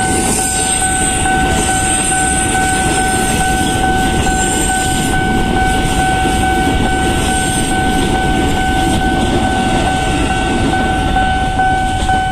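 Ex-Tokyo Metro electric commuter train (set TM 6021) rolling steadily past at a level crossing, its wheels and motors rumbling. Over it runs a steady high electronic tone from the crossing warning alarm.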